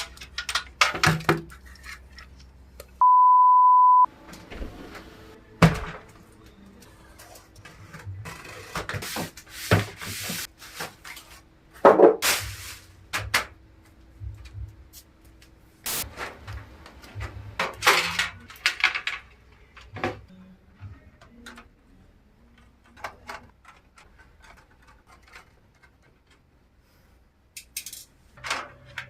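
Hands handling computer parts during a PC build: a run of irregular clicks, knocks and rustles. About three seconds in there is a steady one-second beep.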